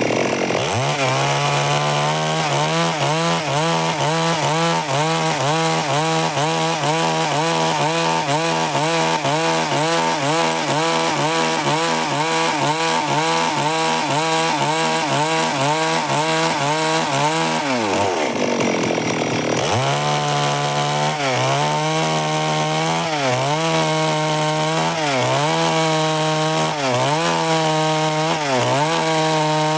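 Stihl MS 382 two-stroke chainsaw running at high revs while cutting lengthwise through wood. The revs sag and pick up again about eighteen seconds in, and in the last ten seconds the pitch dips about once a second.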